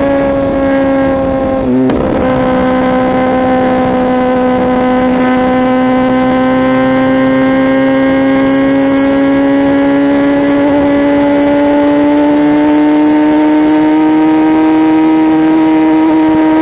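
Kawasaki ZX-10R inline-four engine through a Mivv aftermarket exhaust, under way at steady high revs. There is a brief dip about two seconds in, then the pitch climbs slowly and evenly.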